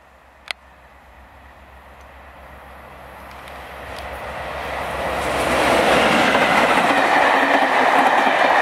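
Class 57 diesel locomotive, with its two-stroke EMD engine, approaching and passing at speed with a passenger train. Its low engine drone grows steadily louder over about five seconds, then the passing coaches' wheel-and-rail rumble and clatter holds loud. A single sharp click about half a second in.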